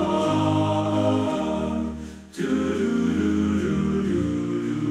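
Song music playing, the closing part of a sung theme: long held chords with no lyrics, a short drop in level about two seconds in, then the chords come back.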